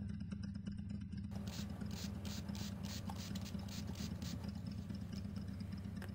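Faint quick swishes, about three a second, from hands working a small spray bottle and a polishing cloth, over a steady low electrical hum.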